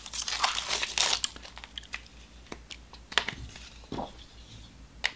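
Plastic packaging of a Funko Soda can crinkling and tearing as it is opened, followed by a few short light clicks and taps.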